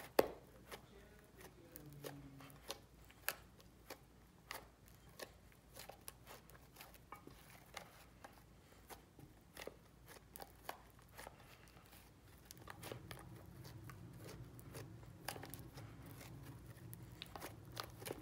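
Fluffy slime being squeezed and kneaded by hand against a glass dish, giving irregular sharp pops and sticky clicks as air pockets in the slime burst.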